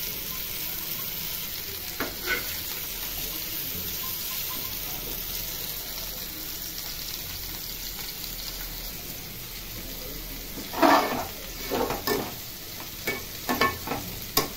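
Chicken drumsticks shallow-frying in hot oil in a pan, a steady sizzle. Near the end come several knocks and scrapes of a spatula or spoon against the pan.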